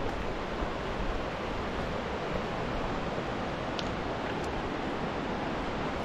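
Steady rush of a mountain river running over rocks.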